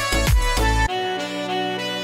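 Background music: a beat-driven track with deep, regular kick-drum thumps breaks off about a second in, and a calmer melodic passage of held notes takes over.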